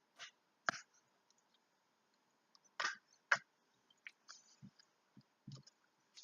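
Slime being poked with fingers: irregular sticky clicks and soft pops with short quiet gaps between them, the loudest two a little before the middle.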